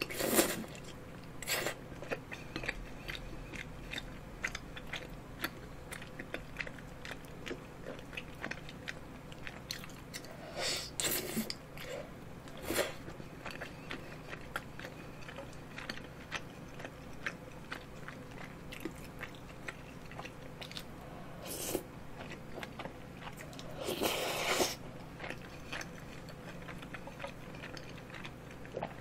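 Close-miked chewing of soft, chewy tteokbokki rice cakes in creamy carbonara sauce, with a slurp as a long rice cake is sucked in at the start. Several more loud slurps come midway and near the end, the longest lasting about a second.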